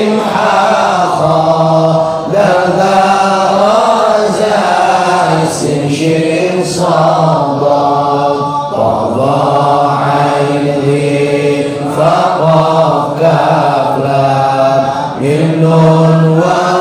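Male voice chanting a devotional melody in long held phrases that slide up and down, with short breaks between phrases.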